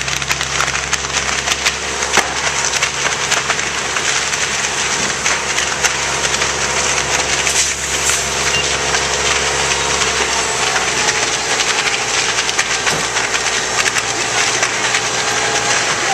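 Large house fire burning, burning timber crackling and popping densely over a steady hiss. A fire engine's low hum runs underneath and drops away about ten seconds in.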